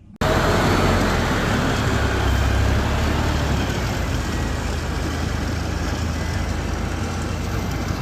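Road traffic noise: a vehicle engine's steady low rumble under a haze of road noise, cutting in abruptly just after the start.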